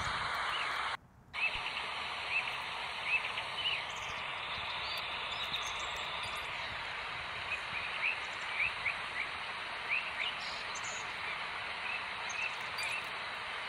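Small birds chirping in short, quick notes scattered throughout, over a steady outdoor background noise. The sound cuts out for a moment about a second in.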